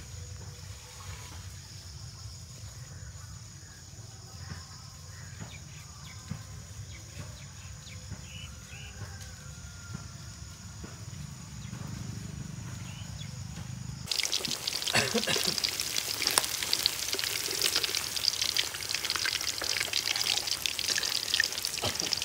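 Fish pieces deep-frying in hot oil, a loud crackling sizzle that starts suddenly about fourteen seconds in. Before that only a low steady hum.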